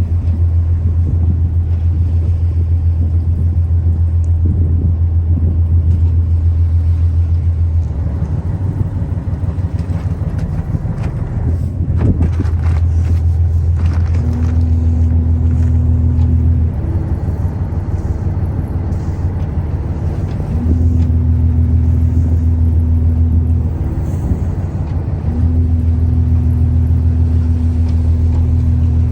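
Ship's engine running with a loud, steady low drone that weakens and comes back several times. A higher steady hum joins about halfway through, and there is a single sharp knock a little before that.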